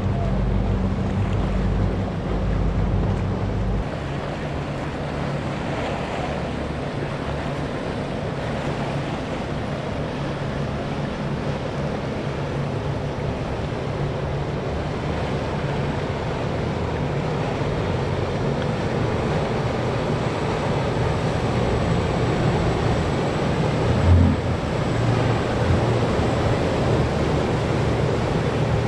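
Surf and waves washing at an ocean inlet with wind buffeting the microphone, under the low rumble of boat engines, strongest in the first few seconds and again near the end. A brief low thump about 24 seconds in.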